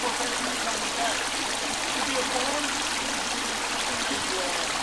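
A rocky creek running over stones: a steady, even rush of water.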